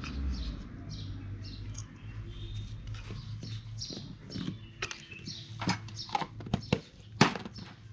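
Birds chirping in many short, quick calls, with a few sharp knocks in the second half.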